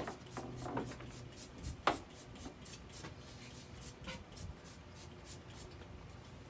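Hands scooping and spreading potting soil in a large flower pot: soft rustling and scraping, with a few sharper knocks and scrapes, the loudest about two seconds in.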